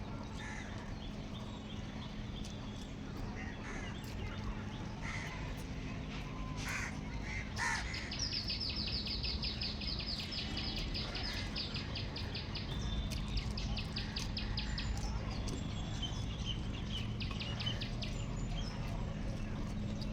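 Birds calling in the background, with a rapid high-pitched trill of many quick notes that runs for about four seconds from about eight seconds in and returns in shorter bursts later, over a steady low hum.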